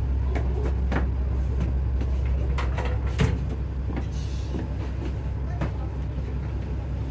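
Steady low drone of a running vehicle engine, with scattered knocks and rattles over it, the loudest a sharp knock about three seconds in.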